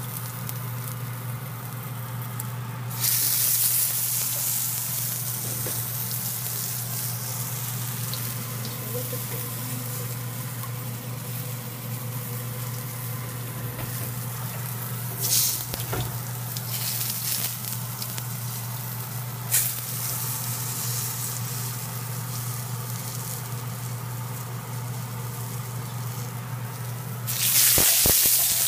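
Salsa-dipped pambazo bread rolls frying in hot oil in a large pan: a steady sizzle that flares louder for about a second around three seconds in and again near the end, with a couple of brief sharper crackles in the middle.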